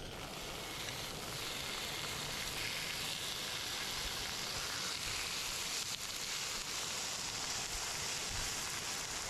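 Pork belly sizzling on a round grill pan, a steady hiss that grows louder about a second and a half in.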